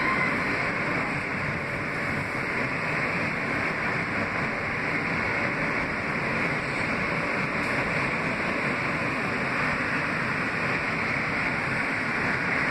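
Steady running noise of a Kawasaki R160B subway car with Siemens propulsion at speed: wheels on rails and rushing air, heard from inside the car.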